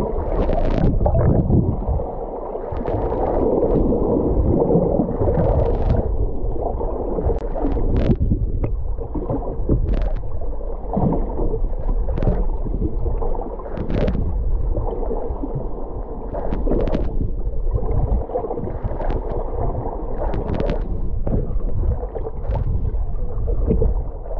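Muffled underwater noise picked up by a camera held just below the sea surface: a steady low rumble and gurgle of moving water, broken by frequent sharp clicks and pops of bubbles and bait hitting the water.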